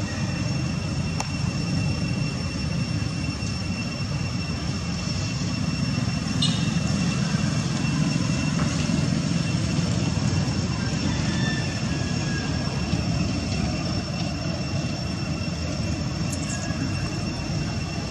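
Steady low rumbling background noise with a thin, constant high whine above it; a brief faint chirp about six and a half seconds in.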